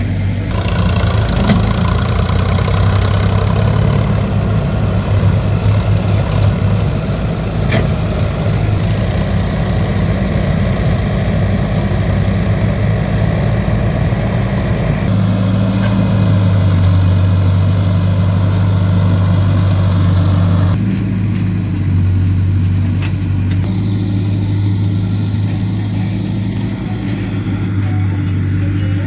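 Backhoe loader diesel engines running steadily at a low, even hum; the pitch of the hum shifts abruptly about halfway through and again about two-thirds through.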